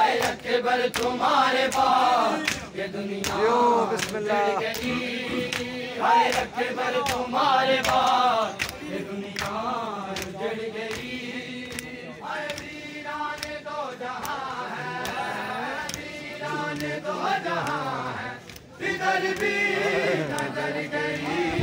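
Men chanting a noha, a Muharram mourning lament, in unison, with regular sharp slaps of hands beating on chests (matam) keeping time. The chant drops out for a moment near the end and comes straight back.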